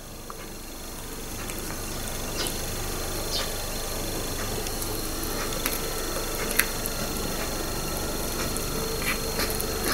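A cat chewing on a small lizard it has caught: scattered faint clicks of its teeth and jaws over a steady low rumble that grows a little louder in the first couple of seconds.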